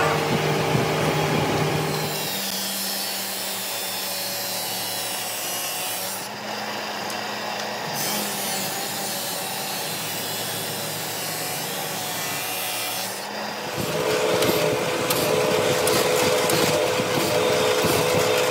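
Curved truck brake lining being ground or sanded on a machine, a steady rasping for most of the time. In the last few seconds it gives way to a drill press motor running with rapid clicking as the bit bores holes through a lining.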